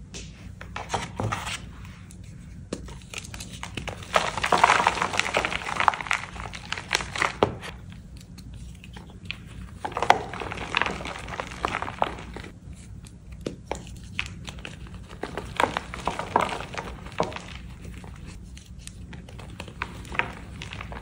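Reformed gym chalk blocks being crushed by hand in a plastic tub: crisp crunching and crumbling as the triangles break down into crumbs and powder. The crunching is loudest and densest about four to seven seconds in and again around ten seconds.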